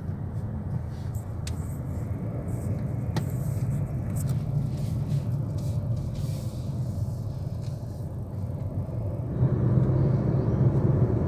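Car cabin noise while driving: a steady low engine and road rumble with a few faint clicks in the first few seconds. It grows louder about nine seconds in as the car picks up speed on the open road.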